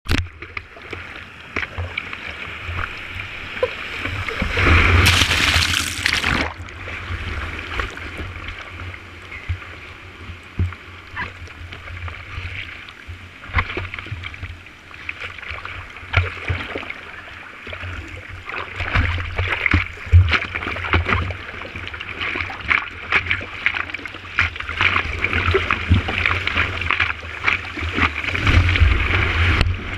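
Seawater splashing and sloshing around a surfboard paddled through whitewater, with many small splashes and a loud rush of broken wave washing over the board about five seconds in. A steady low rumble runs underneath.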